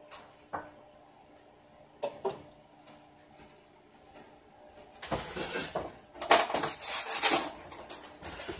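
Kitchen handling sounds: a few light knocks of kitchenware in the first couple of seconds, then about three seconds of loud clattering and rustling.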